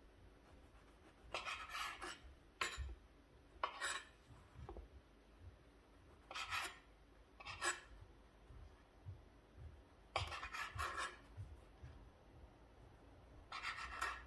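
Kitchen knife sawing through the crust of white sandwich bread on a cutting board: short rasping strokes in a handful of separate bursts a second or few apart.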